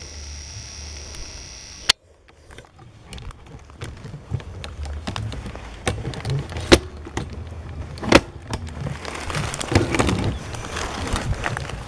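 Steady high insect buzz that cuts off abruptly at a sharp click about two seconds in. Then scattered clicks, knocks and rustling as a hunting rifle and its scope are handled and swung about, with two louder knocks near the middle.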